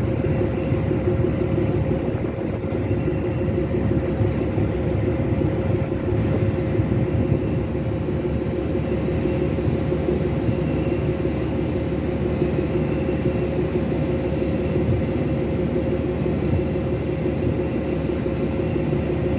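Ship's main engine running just after start-up, heard at the exhaust funnel as a steady, dense rumble with a constant hum over it.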